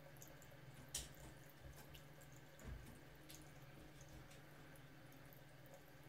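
Near silence: a steady low hum of room tone with a few faint ticks, one sharper click about a second in and a soft thump a little later.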